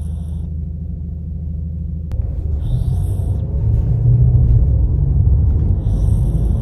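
Bichon Frise snoring in her sleep: low rumbling snores that grow louder a couple of seconds in. Three short high-pitched tones come at the start, about three seconds in and near the end.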